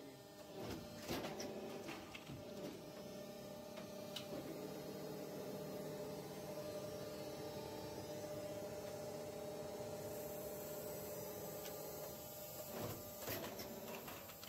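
Plastic bottle-cap injection molding machine running with a steady humming drone. A few short knocks and rattles come about a second in and again near the end.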